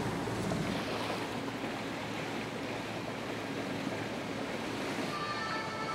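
Steady wash of harbour water and wind on the microphone, heard from low on the water. Near the end a few steady high tones come in.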